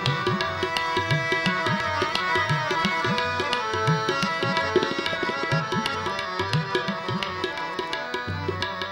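Instrumental kirtan passage: harmoniums holding a steady melody while a tabla plays a fast, dense rhythm, the deep left-hand drum's strokes bending in pitch.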